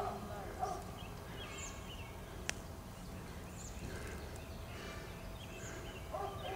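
Faint outdoor ambience: small birds chirping briefly now and then, lower animal calls near the start and again near the end, and a single sharp click partway through.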